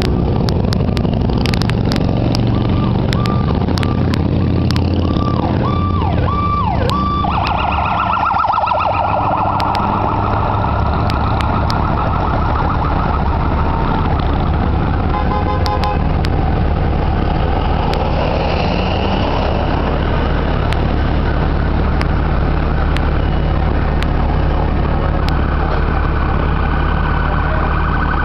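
Emergency vehicle siren: slow rising-and-falling wails, switching about seven seconds in to a fast warbling yelp that then fades, with the wail returning at the very end. A steady low engine rumble runs underneath.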